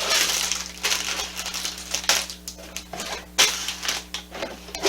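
A small Lego set being unboxed: its cardboard box and the plastic bags of pieces are handled, with irregular rustling and sharp clicks as the loose bricks shift inside the bags.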